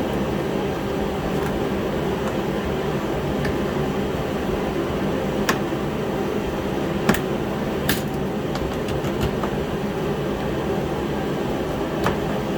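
Steady drone of a heater running, with a few sharp clicks scattered through it as plastic cowl trim clips are pried loose below the windshield.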